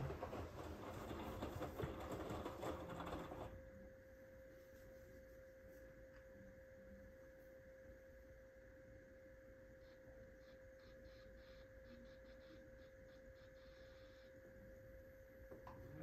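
Front-loading washing machine drum tumbling a wet load of towels with water sloshing, stopping about three and a half seconds in. During the pause only a faint steady hum from the machine remains, and the drum starts turning again at the very end.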